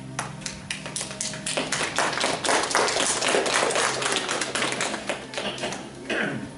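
A rapid, irregular run of sharp taps and clicks, several a second, growing dense in the middle and thinning out near the end, with a short sliding sound falling in pitch just before it stops.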